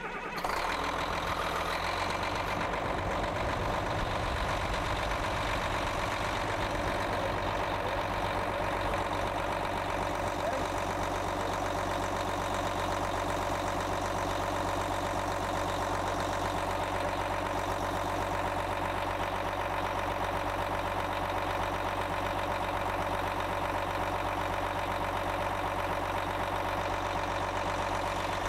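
Caterpillar machine's diesel engine, just started, idling steadily.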